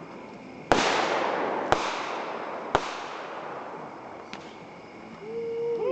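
Fireworks going off: three sharp bangs about a second apart, each trailing off in a fading hiss, then a fainter pop, and a steady whistling tone that starts near the end.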